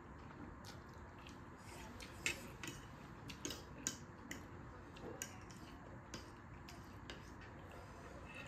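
Scattered light clicks and taps of metal forks against plates as noodles are twirled and lifted, with faint eating sounds.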